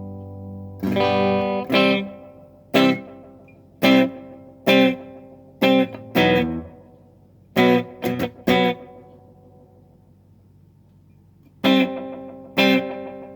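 Electric guitar played through a small Russel RG15 combo amp: a ringing chord fading out, then short, choppy chords struck one after another, a pause of about two seconds, and two more chords near the end.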